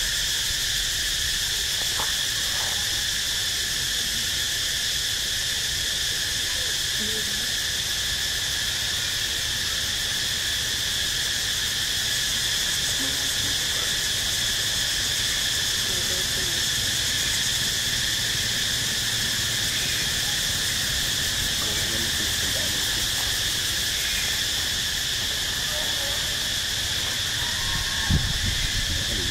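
Steady insect chorus: a constant high chirring held at a few even pitches, over a low rumble, with a brief thump near the end.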